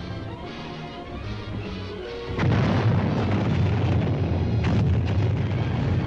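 Dramatic film score with battle sound effects. About two seconds in, a sudden loud booming rumble of artillery fire breaks in over the music and keeps going, with one sharper crack a couple of seconds later.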